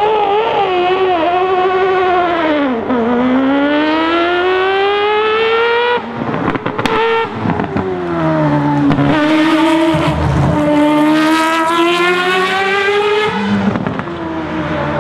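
Racing car engine at high revs, its pitch climbing steadily under acceleration. There is a sudden break about six seconds in, then another long rise in pitch.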